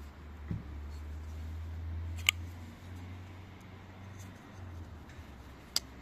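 Close-up handling of a Mocenary MK-10 folding knife: two sharp metallic clicks about three and a half seconds apart over a low handling rumble, with a soft knock near the start.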